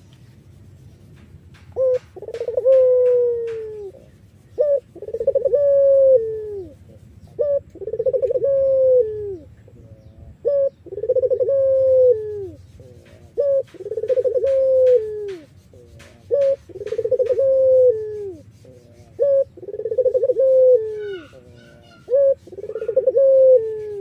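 White domestic Barbary dove (puter) cooing in the 'Iraqi' (irak) style: a short note, then a longer rolling coo that falls in pitch. The phrase starts about two seconds in and repeats about every three seconds, eight times.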